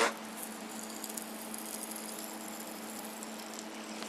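A sharp click, then a steady low hum with faint light crackles.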